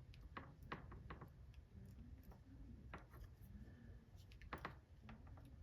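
Faint, irregular light clicks and scrapes of a hand-turned cutting reamer broach opening up a worn pivot hole in a cuckoo clock's movement plate, enlarging it for a press-fit bushing.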